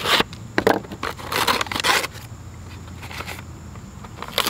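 Folding knife slicing and tearing the paper backing off the bottom of a cardboard firework cake: several short scraping, ripping strokes, the longest a little over a second in.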